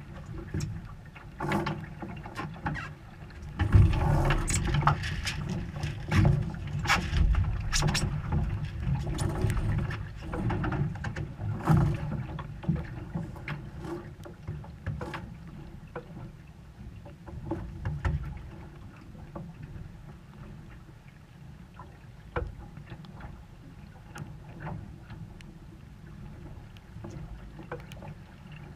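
Sailboat under way: a steady low rumble of wind and water, with irregular clicks and knocks from lines and a winch being worked by hand. The clicks are busiest in the first half and thin out later.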